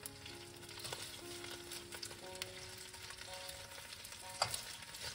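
Chicken drumsticks sizzling in hot oil in a frying pan, with a fork clicking against the pan as they are turned. A louder knock comes about four seconds in, as the pan is gripped. Soft background music with held notes plays under it.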